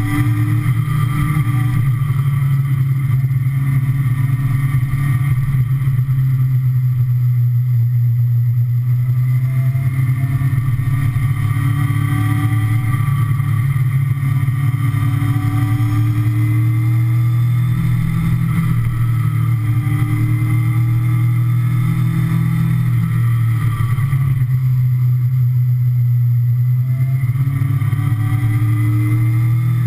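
Inline-four sport bike engine running under way, its pitch climbing through each gear and dropping at the shifts every few seconds, with wind noise over it.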